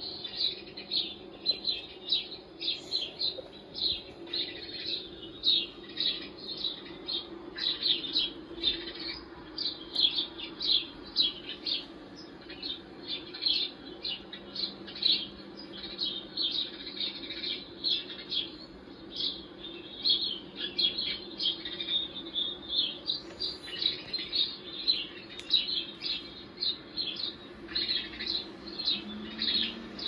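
A flock of house sparrows chirping from a video played through computer speakers: dense, rapid, overlapping chirps that go on without a break, over a steady low hum.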